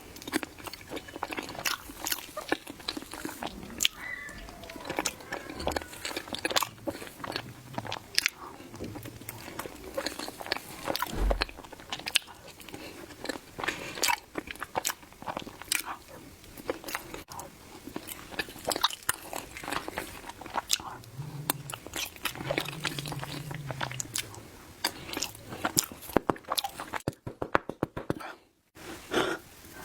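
Close-miked eating sounds: a steady run of small wet clicks and smacks from chewing soft matcha mille crepe cake. Two short low hums come a little past the middle.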